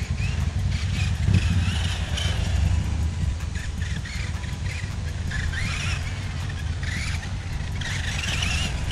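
Subotech Brave 1/22 scale RC buggy driving on asphalt, its small electric motor whining and gliding up and down in pitch as the throttle changes, over a steady low rumble.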